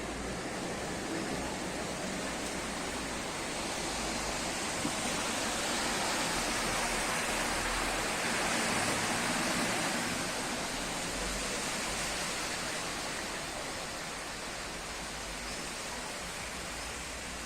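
Heavy rain falling steadily, a dense hiss that swells a little in the middle.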